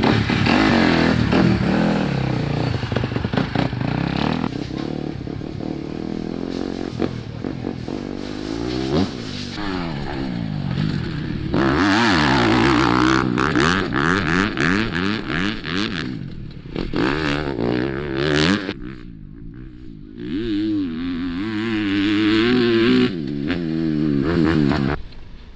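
Motocross bike engine revving hard and dropping back again and again as it is ridden around the track, the pitch rising and falling with each throttle burst. The sound jumps abruptly several times between passes.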